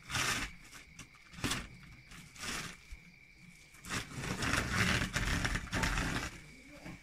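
Ground maize pouring out of a woven plastic feed sack onto a heap of feed, with the sack rustling. It comes in a few short rushes, then a longer, louder pour from about four to six seconds in.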